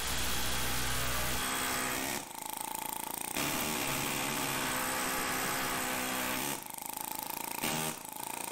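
Pneumatic air hammer rattling against the lip of an old rubber bushing, driving it out of its press fit in a 1969 Chevy Nova front control arm. The hammering is continuous but eases off twice, about two seconds in and again past six seconds, before going full on again.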